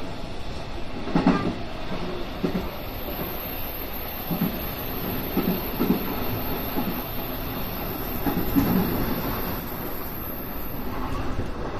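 JR West 221 series electric train running, heard from inside the front cab: steady running noise broken by irregular low thuds as the wheels pass over rail joints.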